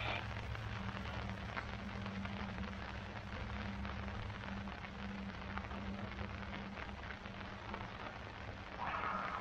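Rain pattering on a tarp shelter, over the steady low hum of a boat engine; the hum's higher tone weakens about seven seconds in.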